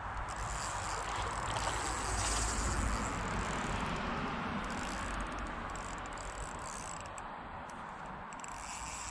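Spinning reel's mechanism rattling steadily as a small hooked carp is played on ultralight tackle, easing a little in the second half.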